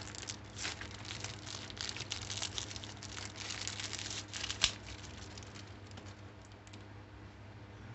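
Plastic packaging crinkling and rustling as it is handled, with one sharp click a little past halfway; the rustling dies down over the last few seconds.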